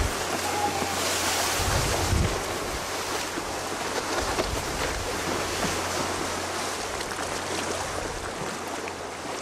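Strong wind blowing across the microphone over the rush of a choppy sea breaking into whitecaps. Low gusts buffet the microphone until about two seconds in, with a faint steady low hum underneath.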